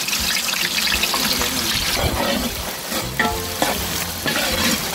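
Chopped shallots and green chillies sizzling as they fry in hot sesame oil in a large aluminium pot, stirred with a metal spoon.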